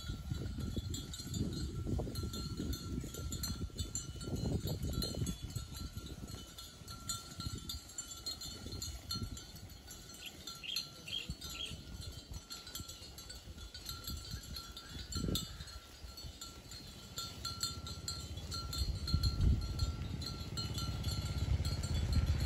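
Cowbells on grazing cattle ringing, a steady tinkling of several bells at different pitches, over a low rumble of wind on the microphone.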